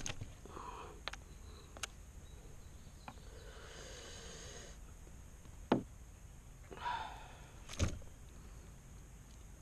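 Faint handling noises in a plastic kayak while a just-caught largemouth bass is held up and set down: a few light knocks and clicks, the sharpest about two-thirds of the way in and near the end, with soft breathy rustles between them.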